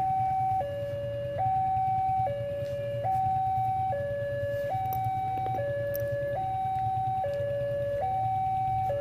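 Railway level-crossing warning alarm sounding: an electronic two-tone signal alternating steadily between a higher and a lower note, each held just under a second, warning that a train is approaching. A steady low hum runs underneath.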